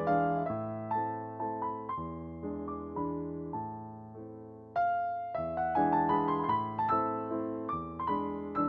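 Background music: gentle piano notes, thinning out and fading for the first half, then picking up again, louder and busier, about five seconds in.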